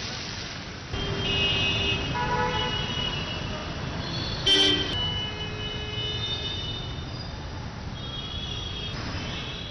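Street traffic with vehicle horns honking several times over a steady wash of engine and road noise; the loudest horn is a short blast about four and a half seconds in.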